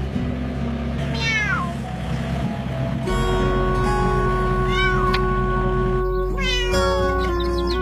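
Cat meowing: a falling call about a second in, another around five seconds, and a quick run of several near the end, over background music with steady held notes.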